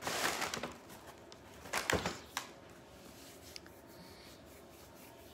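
Paper rustling as it is handled, loudest in the first half second, then a thump and a light knock about two seconds in, with faint handling noises after.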